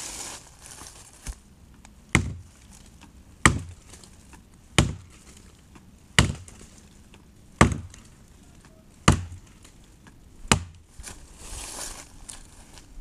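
Gränsfors Bruks forest axe chopping into a log: seven heavy strokes, evenly spaced about a second and a half apart, each a sharp hit into the wood.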